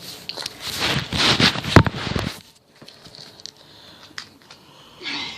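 A Eureka vacuum cleaner's plastic body being struck and clattering, with one sharp, loud crack a little under two seconds in, then a few light knocks.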